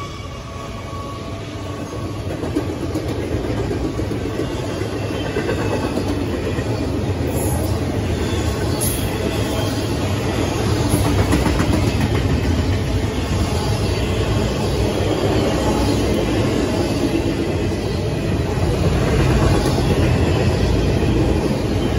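Freight train of double-stacked intermodal well cars rolling past: a steady rumble and clatter of steel wheels on rail, growing louder over the first few seconds and then holding.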